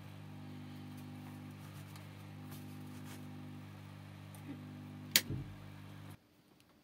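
Steady low electrical hum with a few faint ticks. A single sharp click comes about five seconds in, and the hum cuts off abruptly about a second later.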